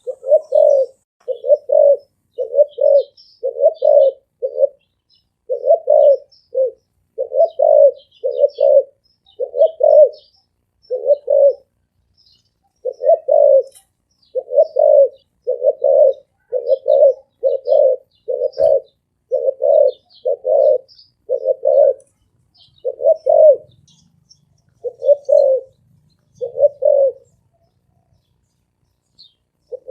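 Spotted dove cooing in a fast series of short, deep, resonant coos, a little more than one a second, with a brief pause about twelve seconds in and another near the end. Faint high chirps of small birds sound behind it.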